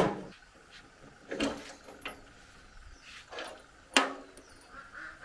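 Sheet-metal parts of an old rice grain separator being handled: a series of metallic clanks and knocks, about five of them, the loudest about four seconds in, each with a short ring.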